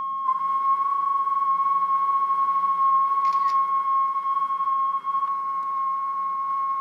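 A person whistles a steady high note at about 1,080 Hz, held to match the pure sine tone of a phone tone-generator app that sounds with it. The app's tone drops out about halfway through and the whistle carries on alone. A single short screenshot shutter click comes about a third of the way in.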